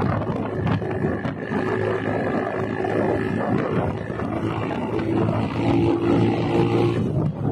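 Engine and wind noise of a moving road vehicle: a loud, steady rumble with a few droning tones that grow stronger from about five to seven seconds in.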